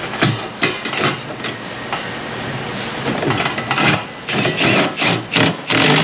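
Hoses and clip connectors being handled and pushed into place: a run of knocks, clicks and rattles, busiest in the last two seconds.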